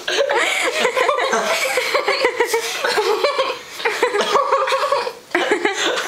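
A group of teenagers laughing together, several voices overlapping, with some talk mixed in.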